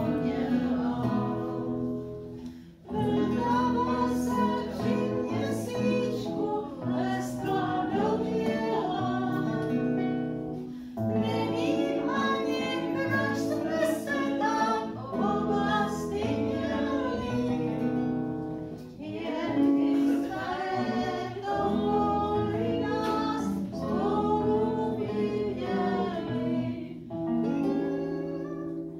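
Voices singing an old Prague popular song, accompanied by acoustic guitar and violin. The sung phrases break briefly about every eight seconds.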